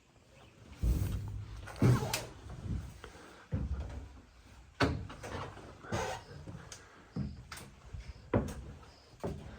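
A series of irregular knocks and thumps, roughly one a second, each with a short ringing tail.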